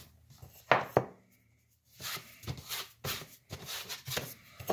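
Bread dough being kneaded by hand on a floured cutting board: dull thumps as it is pushed down and flipped, two about a second in and another at the end, with soft rubbing and patting in between.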